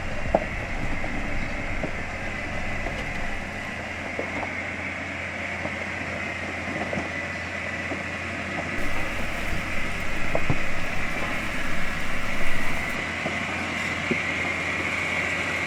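Four-wheel drive crawling down a steep, rough dirt track: a steady engine and drivetrain hum with occasional knocks and rattles from the uneven ground, getting louder and rougher for a few seconds around the middle.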